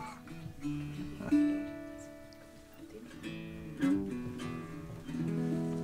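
Acoustic guitar played softly, a handful of strummed chords left to ring out one after another, as if warming up or checking the tuning.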